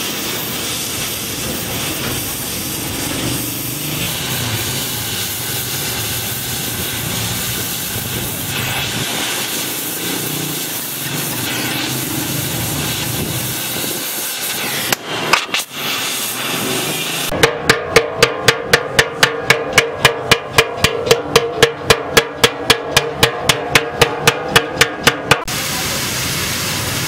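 Gas welding torch hissing steadily on a motorcycle fuel tank. About fifteen seconds in come a few sharp knocks. From about seventeen seconds a fast, even run of sharp ringing strikes, about four or five a second, lasts some eight seconds and covers the hiss, and the steady hiss returns near the end.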